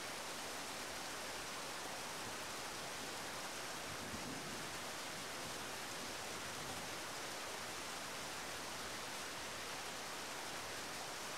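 Steady rain falling, an even hiss at a constant level.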